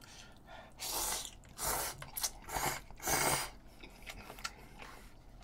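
Eating instant ramen noodles: four short, airy slurps between about one and three and a half seconds in, then quieter chewing.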